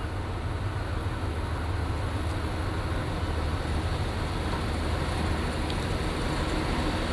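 Class 43 HST power car's Paxman Valenta diesel engine running, a steady low rumble that grows slowly louder.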